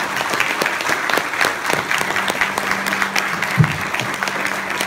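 Audience applauding, a dense patter of many hands clapping, with a single low thump about three and a half seconds in.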